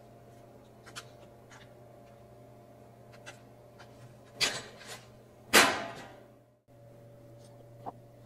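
Small clicks of a plastic water bottle being handled and its cap twisted open, then two loud sudden knocks about four and a half and five and a half seconds in; the second is the loudest and dies away over most of a second in the echo of a large hall. A steady low hum sits underneath.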